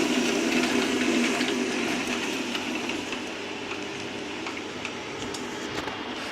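Continuous band sealer running: the belt drive and cooling fan hum steadily, with faint light ticking from the moving belt. The hum drops to a quieter level about two seconds in.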